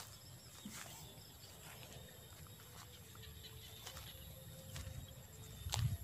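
Faint rustling and sloshing of water and floating water hyacinth being pushed through by hand, with a few small clicks and a low rumble that swells near the end.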